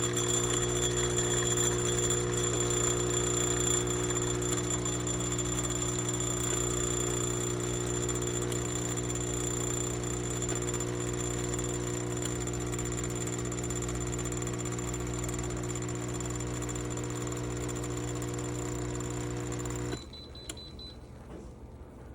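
Home espresso machine's pump running with a steady hum and a faint high whine, cutting off suddenly about 20 seconds in, as when a shot finishes pulling.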